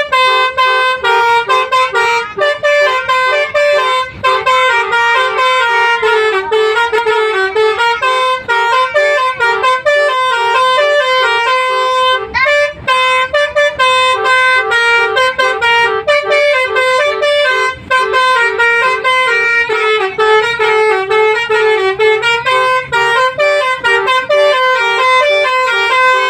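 Basuri V3 telolet bus horn playing a long melody: quick stepped horn notes over a lower held tone, without a break.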